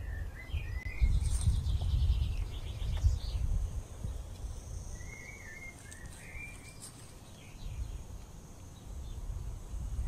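Small birds giving short warbling calls, once at the start and again about halfway through, over a low wind rumble on the microphone that is heaviest in the first few seconds. A thin, steady, high insect buzz runs through the second half.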